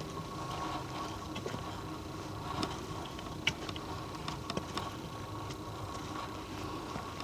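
Footsteps on a forest trail: scattered light snaps and crackles of twigs and leaf litter underfoot, over a steady faint hum.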